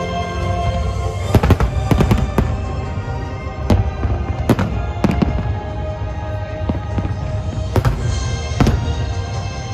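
Aerial fireworks shells bursting in a rapid, uneven series of sharp bangs, starting about a second in, over music that plays throughout.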